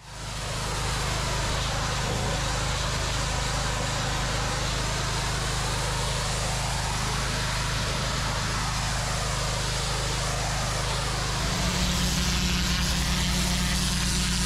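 A pressure-washer lance jetting water onto block paving: a steady hiss of the spray over the steady drone of the engine-driven pump. It fades in at the start, and the engine note shifts and grows stronger about three-quarters of the way through.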